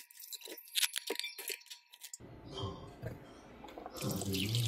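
A few light clicks and knocks, then from about two seconds in, chicken broth poured from a carton onto green beans in a pan, splashing steadily and getting louder near the end.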